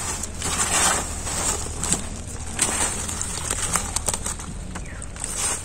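A wet nylon net being pulled and handled in shallow water: irregular rustling and crackling with small water sloshes.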